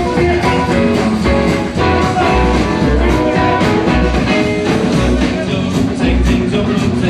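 Live rockabilly band playing: upright double bass, acoustic guitars and drums, with a steady low beat about twice a second.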